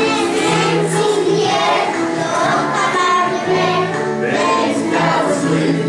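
A group of young children singing together over backing music with a steady repeating bass note.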